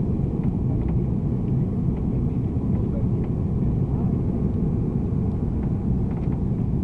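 Steady cabin noise inside an Airbus A340 climbing out after takeoff: the engines and the airflow over the fuselage make an even, low rumble.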